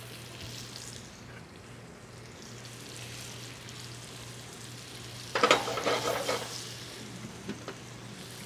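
Sliced shallots and garlic sizzling steadily in hot fat and oil in an enamelled cast-iron Dutch oven. About five and a half seconds in there is a louder second or so of stirring against the pot.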